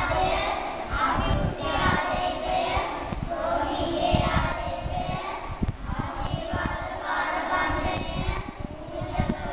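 A group of children singing a hymn together, in short phrases with brief breaths between them.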